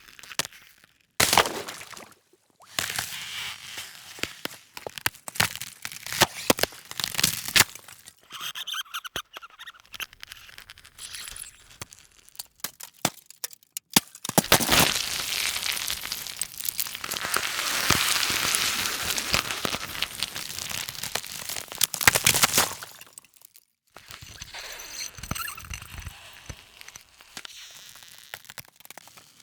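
A montage of thin-ice sound effects: sharp cracks and snaps, crunching and crackling of ice breaking up, with a long dense crackle in the middle and brief silences between the samples.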